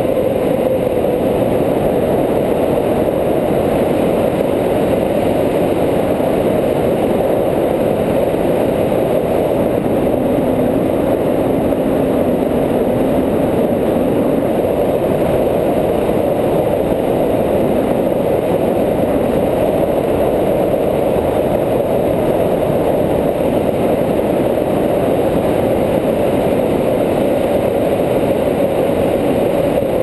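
Steady rushing of airflow over the camera's microphone as a tandem paraglider flies, a loud even noise with no break.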